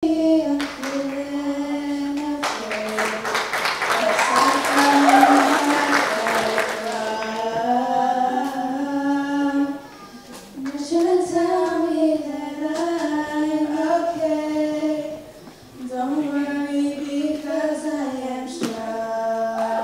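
Young girls singing a song into handheld microphones, holding long notes, with two short breaks between phrases. A burst of hissy noise sits under the singing from a few seconds in to about seven seconds, loudest around five seconds.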